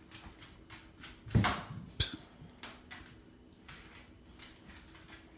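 Boxer dog's claws clicking faintly on a hardwood floor as it walks, with one louder thump about a second and a half in and a sharp click shortly after.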